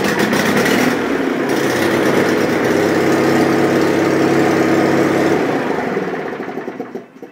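John Deere 316 garden tractor's engine running steadily, then losing speed and dying out near the end as the PTO is engaged. The owner puts this fault down to an electrical problem in the PTO circuit.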